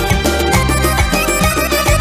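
Instrumental passage of Armenian folk-pop dance music: a steady drum-and-bass beat under a sustained melody line.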